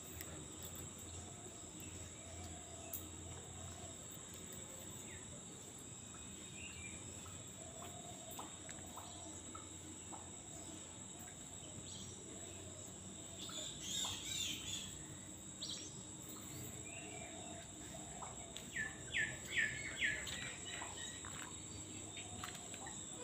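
Oriental magpie-robin calling: a few scattered short chirps, a busy flurry of calls about two-thirds of the way through, and a quick run of five or six loud short notes near the end. A steady high insect drone runs underneath.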